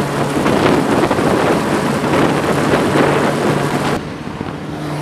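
E-2 Hawkeye's twin turboprop engines running at high power: a steady low propeller hum under a loud rush of prop wash and wind. About four seconds in, the hiss drops away abruptly.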